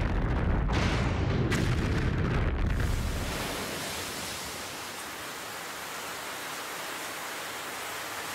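A deep rumbling explosion with a few sharp cracks, dying down about three seconds in to a steady hiss of sea surf breaking on a rocky shore.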